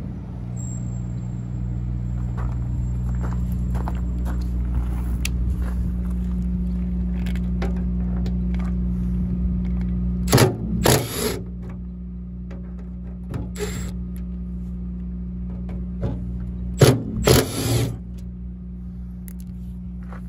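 An engine running steadily, a little quieter from about halfway through, with two loud clusters of sharp knocks: one about halfway through and one near the end.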